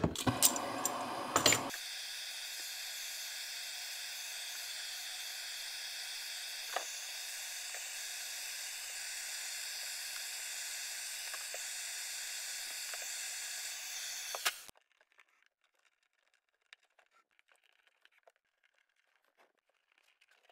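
A few handling knocks, then a small handheld gas torch burning with a steady hiss for about thirteen seconds before it cuts off suddenly. The torch is searing the ends of nylon-sheathed wick cord so they won't fray.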